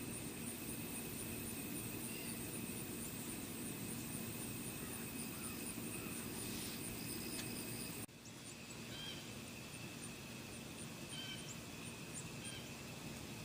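Outdoor ambience: a steady hiss with scattered faint short chirps and a regular faint high ticking. About eight seconds in, the background cuts abruptly and turns quieter.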